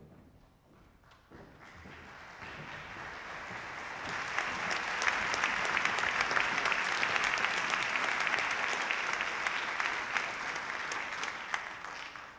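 Concert-hall audience applauding: the clapping builds over the first few seconds, holds steady, then dies away near the end.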